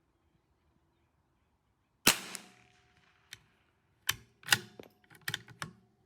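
A single .22 LR shot from a CZ 457 AT-ONE bolt-action rifle about two seconds in, a sharp crack that dies away quickly. It is followed by a run of sharp metallic clicks and clacks: the bolt being worked to eject the case and chamber the next round.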